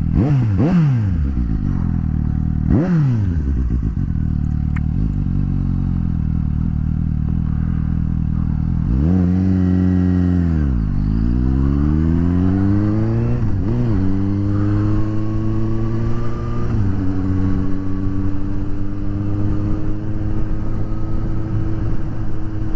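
Suzuki GSX-S750 inline-four idling with two quick throttle blips, then pulling away and accelerating through the gears, with a shift about fourteen seconds in and another about seventeen seconds in, before settling into a steady cruise.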